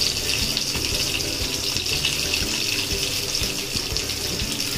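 Freshly added sliced onions sizzling in hot oil in an aluminium kadai: a steady hiss.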